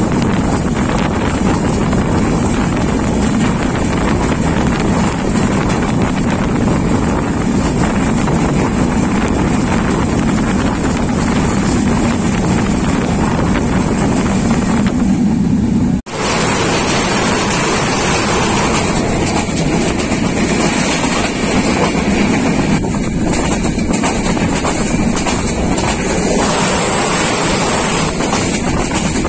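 Moving train heard from an open carriage window: a steady rumble of the train running on the track, mixed with wind buffeting the microphone. It cuts out abruptly about sixteen seconds in and resumes at once.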